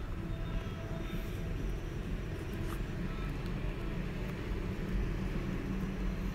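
Steady low rumble of background noise.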